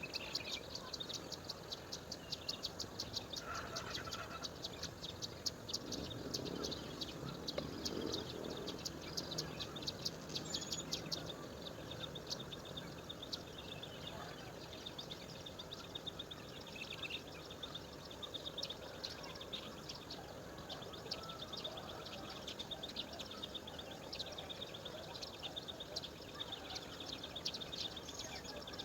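Woodland ambience of rapid, high-pitched chirping and ticking from birds and insects, several calls a second, with a few louder bird chirps standing out.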